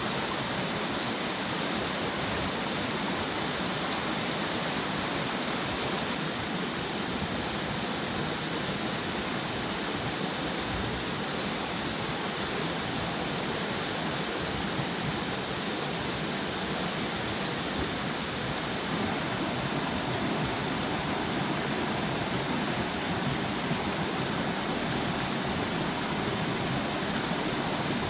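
Shallow rocky stream running steadily over stones. A short, high trill of a few quick notes rings out three times, about 1, 6 and 15 seconds in.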